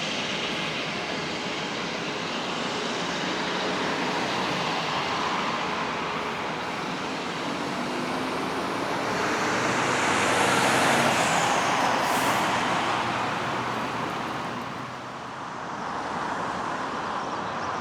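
Jet airliner engine noise, swelling to a peak about two-thirds of the way through as the aircraft passes, with faint shifting tones, then easing off near the end.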